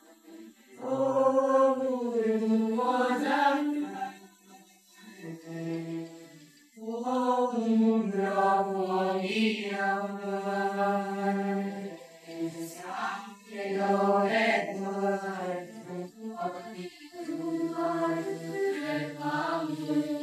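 Choir of students singing an anthem together in long held phrases, with a pause of a couple of seconds about four seconds in and brief breaks between later lines.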